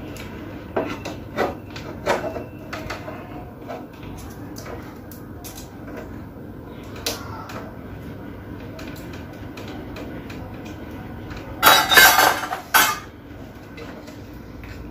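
Small hard objects being handled and set down: scattered light clicks and knocks, with a louder clatter of several knocks about twelve seconds in.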